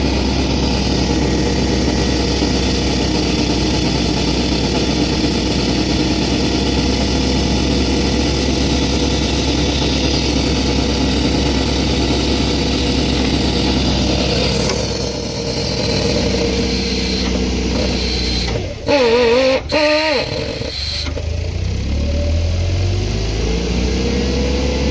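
An engine runs steadily at an even pitch. About three quarters of the way through, a loud wavering sound lasts a second or two, then a lower rumble follows with a slowly rising tone.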